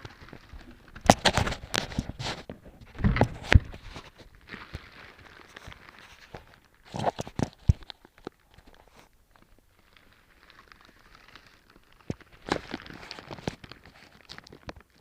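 Packaging handled in bursts: rustling of paper and cardboard with sharp knocks and clicks, loudest about a second and three seconds in, again around seven seconds and near the end.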